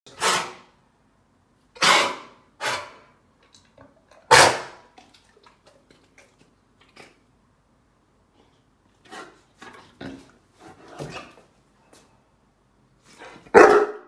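A large dog giving short, harsh vocal bursts: four loud ones in the first five seconds, softer ones a few seconds later, and another loud one near the end.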